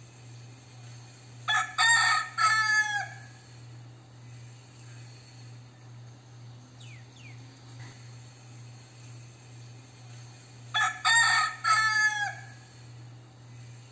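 A crossbred gamecock rooster crowing twice, about nine seconds apart. Each crow is a broken-up call that ends in a long, falling final note.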